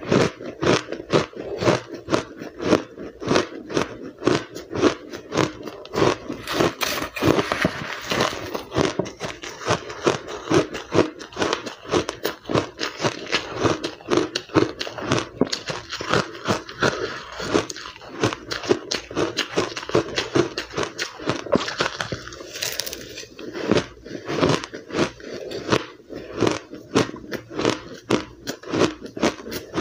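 Close-up chewing of powdery blender-crushed ice: a continuous run of crisp, rapid crunches, several a second, as mouthfuls are bitten and ground between the teeth.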